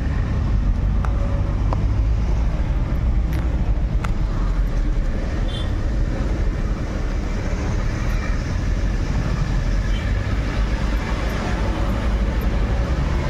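Car driving on a hill road, heard from inside the cabin: a steady low rumble of engine and tyres, with a few faint clicks in the first few seconds.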